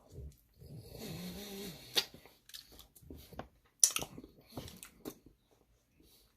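Close-up eating sounds of a person eating saucy chicken wings: a brief steady nasal sound about a second in, then wet chewing, lip smacks and sharp clicks, the loudest near the middle.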